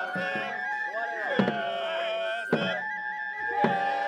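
Japanese festival music: a high bamboo flute playing held notes with quick trills over other melodic lines, with a drum struck about once every second and a bit, four strikes in all.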